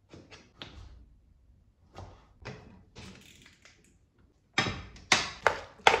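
A string of knocks and clatters, faint at first, then four loud sharp ones about half a second apart near the end.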